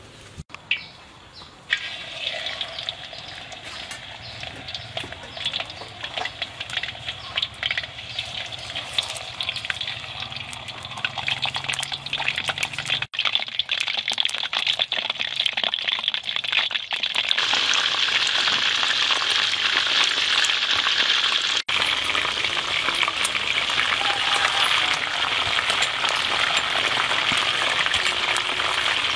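Hot oil sizzling and crackling around whole chickens frying in a wok, growing louder over the second half.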